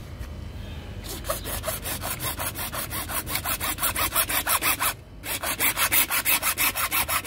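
Handheld hacksaw blade sawing through a PVC pipe in rapid back-and-forth strokes, about five a second. The sawing starts about a second in, stops briefly about five seconds in, then carries on.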